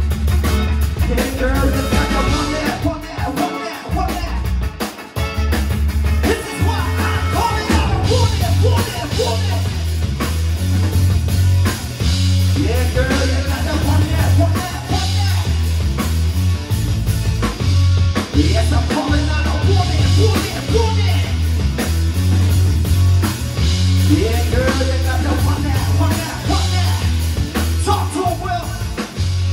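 Live rock band playing a song: drum kit, a heavy electric bass line and a singer's voice through the PA.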